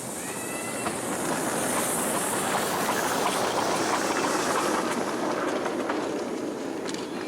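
Miniature railway train passing by, its wheels clattering over the rail joints. The sound swells to a peak midway and then fades as it goes away.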